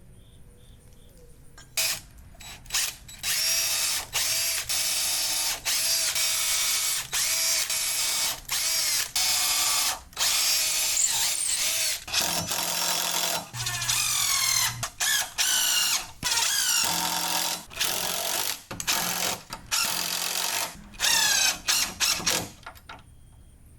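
Power drill driving screws to mount a flip-up caster on a workbench leg. It runs in many short bursts that start and stop repeatedly, its pitch rising and falling as it speeds up and slows down.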